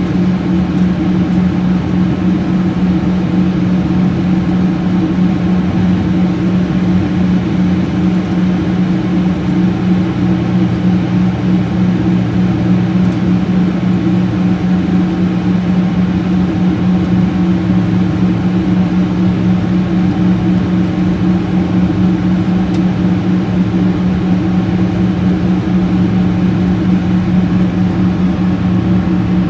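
Jet airliner in flight heard from inside the cabin: the turbofan engines and airflow make a steady low hum over an even rush of noise.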